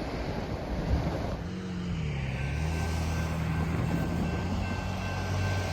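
Diesel freight locomotive approaching, a steady low engine drone with wind noise on the microphone.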